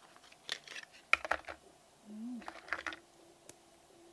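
Clicks and rustles of cosmetic packaging being handled and a plastic lip-tint tube being picked up. They come in two short bursts, one about a second in with a sharp loudest click, and another around two and a half seconds in.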